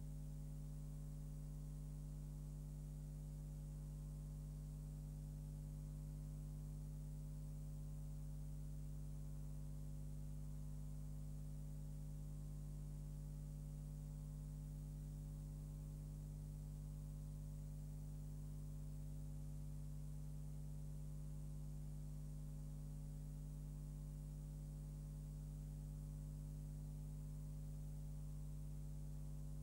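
Steady low electrical hum with a faint hiss, unchanging throughout, with no other sound: the noise of a silent film's transfer.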